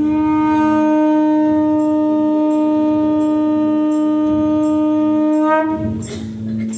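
One long note blown on a horn-like wind instrument, held steady at a single pitch for nearly six seconds after a slight upward scoop at the start, then stopping. A quieter, lower steady drone sounds underneath it.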